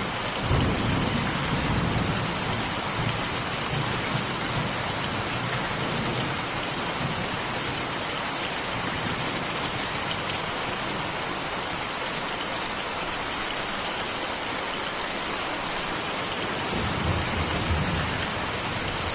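Steady, heavy rain falling. Low rumbles of thunder come in about half a second in and again near the end.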